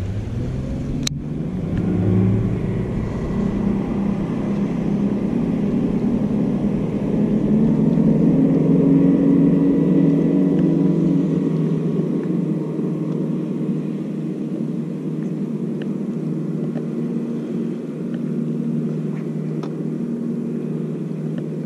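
An engine running steadily, its hum swelling around the middle and then easing off slightly, with a single sharp click about a second in.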